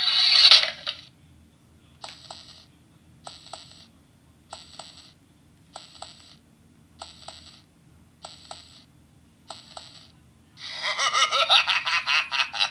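Halloween scary-sound-effect gadget playing its effects through a small speaker: a short burst, then about seven short, clicky pulses a little more than a second apart, then a longer, louder effect with sweeping pitch near the end.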